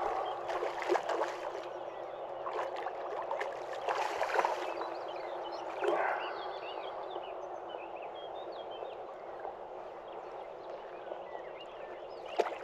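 A hooked asp thrashing and splashing at the river surface as it is played in to the landing net. There are several bursts of splashing in the first six seconds, then quieter lapping water.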